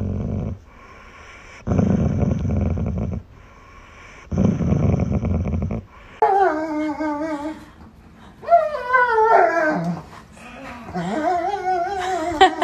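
Golden retriever growling in three long, low grumbles while being petted, a grumbling complaint from a dog that still wants the petting. In the second half it whines in wavering, drawn-out calls that fall in pitch.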